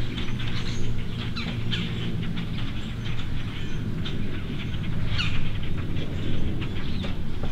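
Birds chirping and calling in short notes, some sliding down in pitch, over a steady low hum.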